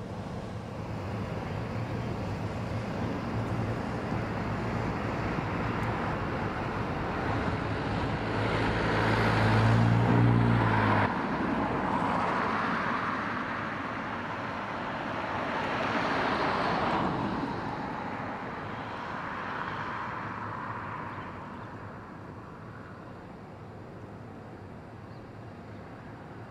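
Motor traffic passing. A low engine hum builds and cuts off abruptly about eleven seconds in, then two more vehicles swell past and fade.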